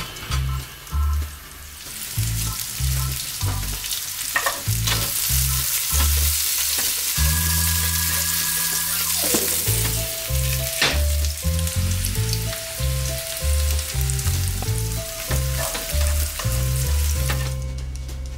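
Food frying in a pan: a steady crackling sizzle that starts about two seconds in and stops just before the end, over background music with a stepping bass line.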